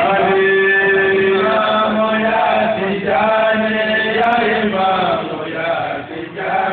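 Male voices chanting a Sufi praise eulogy in long, drawn-out held notes with gliding pitch between them, over a steady low hum.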